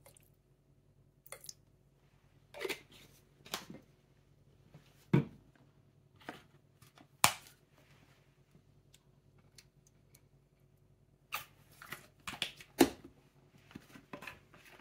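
Plastic squeeze bottles of bathroom liquids, shower gel among them, squeezed and squirted into a glass bowl. There is an irregular run of short squirts, squelches and knocks, a few of them much sharper than the rest.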